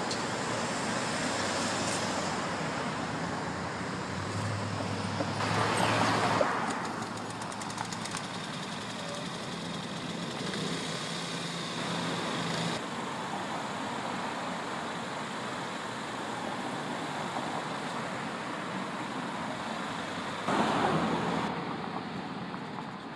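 Road traffic noise: a steady rush of cars on the road, with vehicles passing louder about six seconds in and again near the end.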